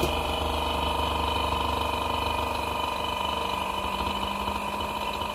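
Vacuum laminating machine for phone screens running, its pump making a steady mechanical hum with a few steady tones as it holds the chamber under vacuum during lamination.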